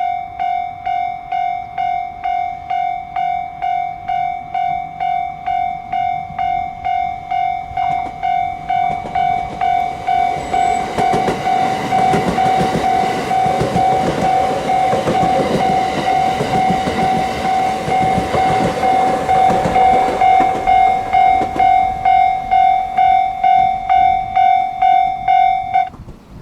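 Japanese railway level-crossing warning bell ringing steadily, about two strokes a second, while a train passes over the crossing, loudest from about 12 to 20 seconds in; the bell stops abruptly near the end.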